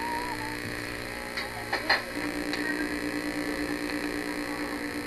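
A click, then a steady electrical hum that starts about two seconds in. Before it there is only a faint background.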